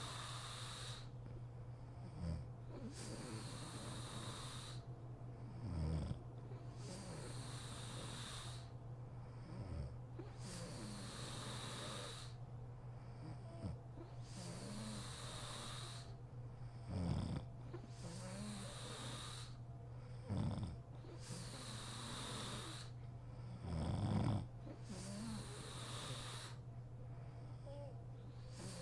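A sleeping woman snoring in a steady rhythm, one breath about every three and a half seconds, each with a hissing breath and a short, louder low snore, the loudest near the end.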